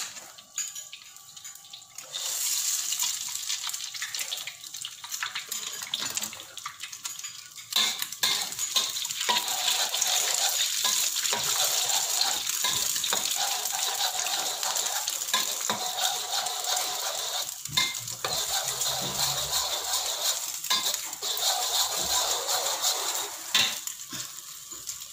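An egg frying in hot oil in a wok, sizzling steadily, with a spatula scraping and tapping against the wok as the egg is stirred and scrambled. The sizzle picks up about two seconds in and gets louder around eight seconds in.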